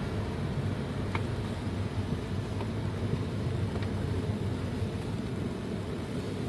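Steady low rumble of a car's engine and road noise.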